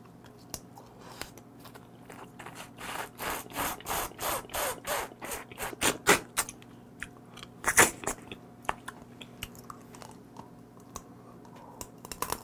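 Close-up chewing and biting of raw soy-marinated blue crab with its shell: a run of even crunches, about three a second, then a few sharp cracks of shell, the loudest about two-thirds of the way through.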